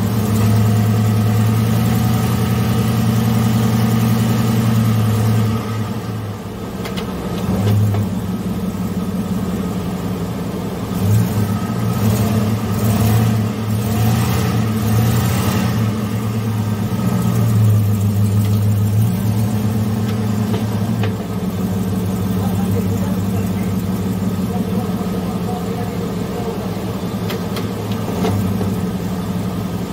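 2012 Chevrolet Avalanche's V8 running with the automatic transmission engaged, a steady low hum under the truck that dips and swells a few times through the middle. The transmission is being listened to for a grinding noise, after its clogged cooler circuit was cleaned and while it runs on flush fluid.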